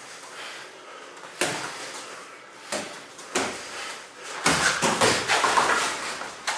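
Boxing gloves smacking during sparring: a few single punches land, then a quick run of blows and scuffling from about four and a half seconds in.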